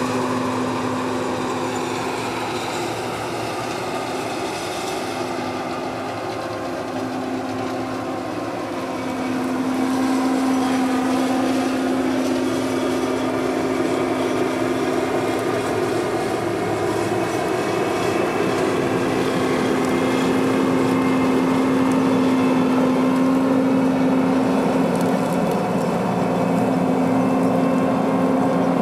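Combine harvester running steadily during the soybean harvest: a constant engine-and-machinery hum with a steady low tone, growing a little louder about ten seconds in.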